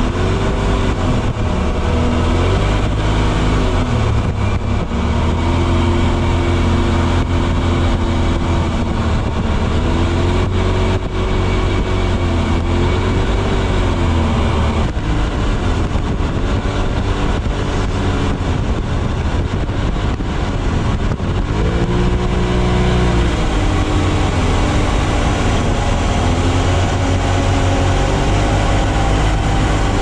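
Polaris off-road buggy engine running under load, its pitch rising and falling again and again as it is driven and revved.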